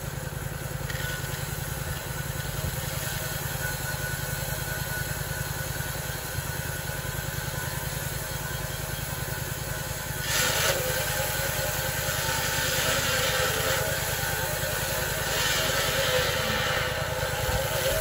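Engine of a homemade bandsaw mill running steadily. About ten seconds in it gets louder and a rushing hiss joins it.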